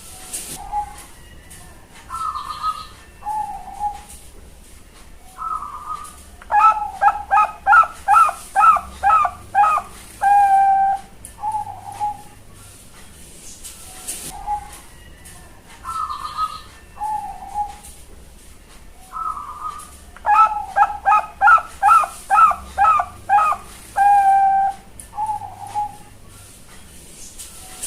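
A young Bangkok-strain zebra dove (perkutut) singing its cooing song. A few separate soft coos lead into a fast, rhythmic run of about ten coos, which ends in a longer held coo. The whole phrase comes twice, about 14 seconds apart.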